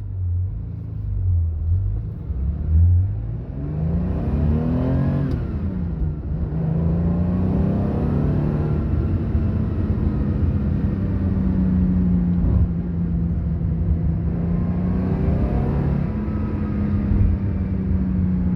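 1982 Porsche 911 SC's freshly rebuilt 3.0-litre air-cooled flat-six, fitted with a stainless-steel sport exhaust, pulling under acceleration. The engine note climbs for a couple of seconds and drops at a gear change about five seconds in. It then climbs again and settles into a steady cruise, rising briefly once more near the end.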